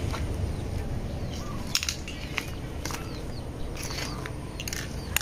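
Outdoor ambience with scattered short high bird chirps and a few brief crunching clicks over a low steady background hum.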